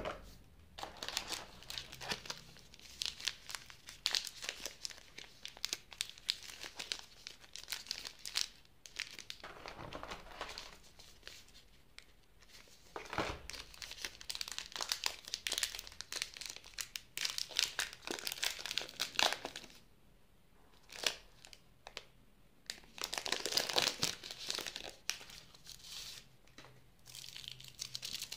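Wrapper of a Cadbury Dairy Milk Silk chocolate bar crinkling and tearing as it is handled and opened, in bursts with short pauses.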